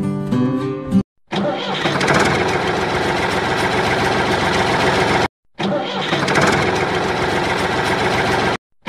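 Strummed guitar music for about a second, then a tractor engine running: a sound effect dubbed over a toy tractor. The engine sound cuts to silence for a moment twice.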